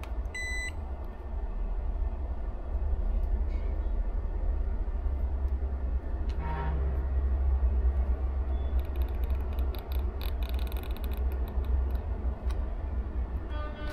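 Steady low hum throughout, with one short, high electronic beep about half a second in, like a digital multimeter's beep as the probes go onto the ECU board. A few faint clicks follow later, around the probe work.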